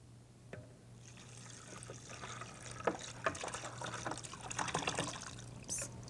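Canned chopped tomatoes and their juice poured from a glass pitcher into a glass bowl of beef broth, a thick liquid trickling and splashing with small plops and knocks as the pieces drop in. The pour starts about a second in.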